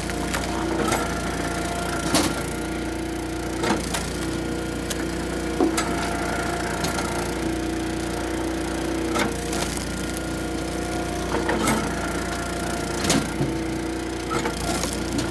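Engine-driven Eastonmade hydraulic log splitter running steadily while its ram splits a log round. A higher whine comes and goes as the ram works, and the wood gives sharp cracks about every one to two seconds as it splits.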